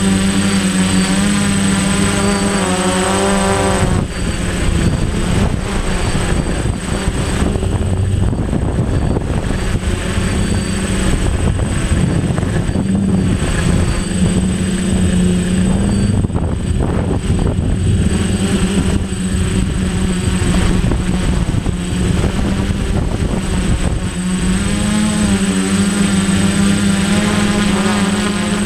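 DJI Flame Wheel 450 quadcopter's motors and propellers whining in flight, their pitch wavering as the motors adjust speed. Heavy wind buffeting on the microphone covers much of the middle stretch, and a thin steady high whine runs throughout.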